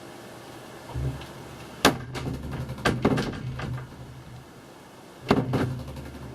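Teardrop camper door being shut and tried with its vintage latch against a new steel catch: four sharp slams and clacks of the door and latch, with a low rumble between them.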